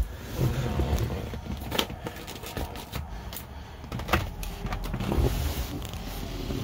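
Low rumbling handling noise from a handheld phone being moved about, with a few sharp clicks and knocks.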